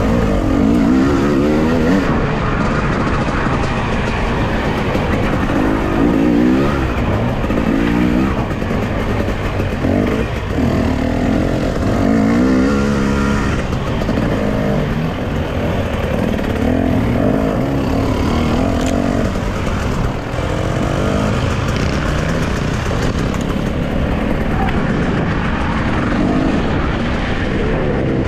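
Enduro motorcycle engine being ridden hard off-road, its pitch rising and dropping again and again as the throttle is opened and shut through the laps.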